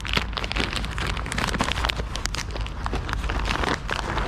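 Rapid rustling and crackling of a bag of nuts being handled and opened for bird feed, over a steady low rumble.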